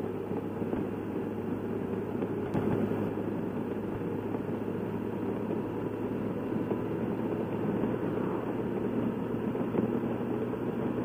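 Honda motorcycle riding at steady cruising speed: engine running under a steady rush of wind and road noise, without change.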